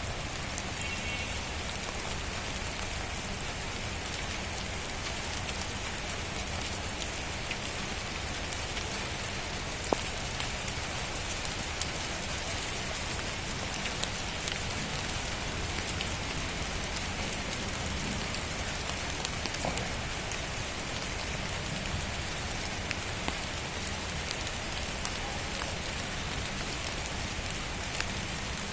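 Rain falling steadily, an even hiss dotted with scattered sharper drop ticks; one louder tap about ten seconds in.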